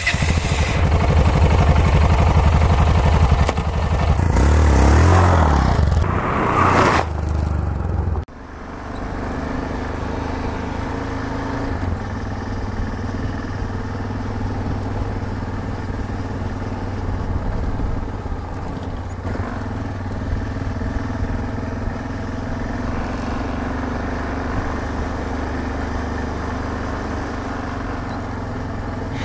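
Yamaha XT 660Z Ténéré's single-cylinder engine running steadily under way. A louder, busier stretch fills the first eight seconds and cuts off abruptly.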